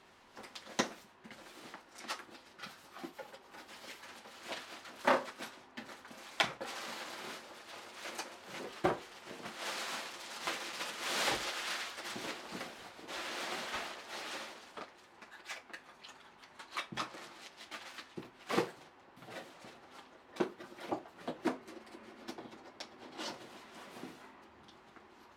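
Cardboard box and packaging being handled and opened: scattered knocks and clicks, with a stretch of rustling in the middle.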